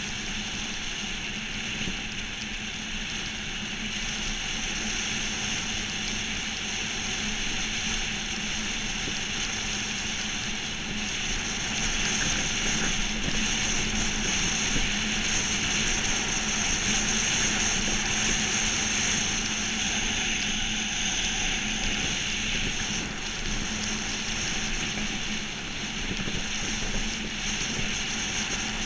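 Monotype XV ice yacht under way at speed: the steady rush of its steel runners skating over the ice mixed with wind, growing louder through the middle as the boat picks up speed.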